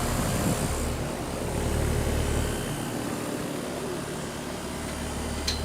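Brand-new Ruud Achiever 2.5-ton air-conditioner condensing unit running on its first startup: the Copeland scroll compressor gives a steady low hum under the rush of the condenser fan.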